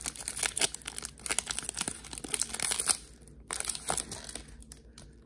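Foil wrapper of a Pokémon card booster pack crinkling as the torn pack is handled and the cards are pulled out of it. The crackling is densest for the first three seconds, with a brief burst again about four seconds in.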